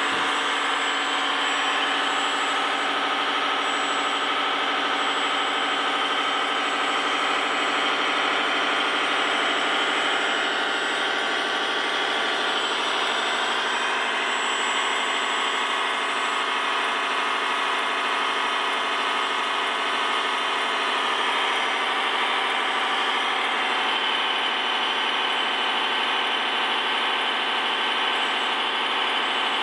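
Diesel engine sound from a radio-controlled construction machine's sound module, running steadily. It sounds thin, with almost no deep bass.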